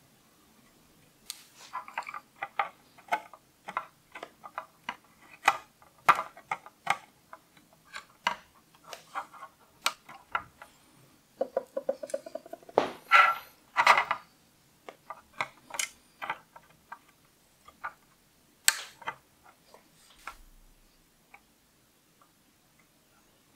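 Soldering iron tip and solder wire clicking and tapping at a circuit board's header pins while a resistor is soldered on: irregular light ticks in spurts, several a second, with a brief squeak about halfway through and the loudest taps just after it.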